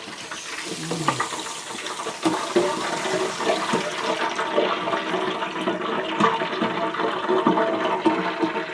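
Covered pot of meat and fish boiling hard, a steady rushing, bubbling noise that builds over the first couple of seconds and then holds.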